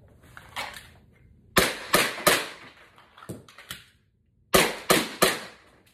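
Glock 19X pistol shots indoors: a short rustle of the draw, three quick shots about a third of a second apart, then two small handling clicks and a second string of three quick shots, each ringing briefly in the room.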